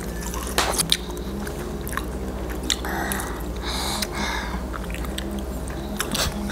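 Chewing and wet mouth sounds of sausages with nacho cheese being eaten, with scattered sharp clicks and two short hissy sounds about three and four seconds in.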